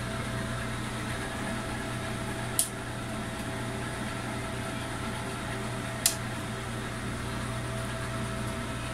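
Steady hum of a powered-on desktop power supply and motherboard, the supply's fan running; the board is now getting power. Two sharp clicks, one about two and a half seconds in and another about six seconds in.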